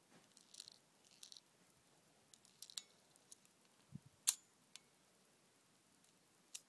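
Faint clicks and light rattling of airsoft pellets being loaded by hand into an airsoft gun, with a soft low thump about four seconds in followed at once by one sharp, louder click.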